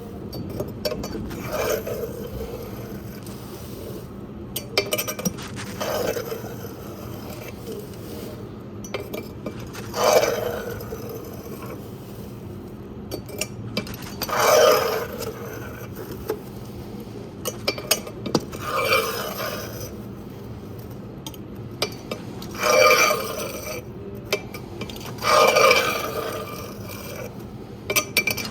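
Ash being scraped and scooped out of a homemade fireplace: repeated scraping strokes a few seconds apart, with light clinks of a tool against metal.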